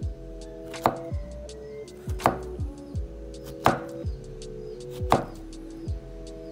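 Knife slicing strawberries on a wooden cutting board, a sharp cut every second or so, over background music with held chords and a steady beat.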